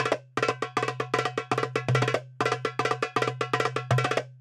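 Darbuka played solo in a fast technique drill: quick runs of sharp hand strokes, about eight a second, in phrases of roughly two seconds separated by brief breaks, with a low ring from the drum underneath.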